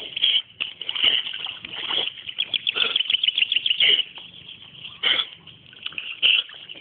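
Young rottweiler paddling in a pool, its strokes splashing and sloshing the water in repeated bursts, with a quicker run of splashes around the middle.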